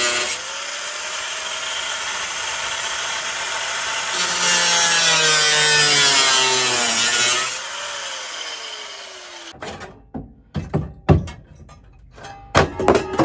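Corded angle grinder with a cutting disc cutting through sheet steel, its whine dropping in pitch as it bites and rising as the load eases. About seven and a half seconds in it is released and spins down with a falling whine. A series of sharp metallic knocks and clanks follows as the cut piece of steel is worked loose by hand.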